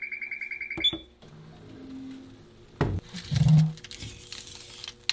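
Oven control panel's timer beeping rapidly for about a second as it is started on a 20-minute bake, then one short higher beep. A high whistling tone follows, then a sharp knock and a low tone near the end.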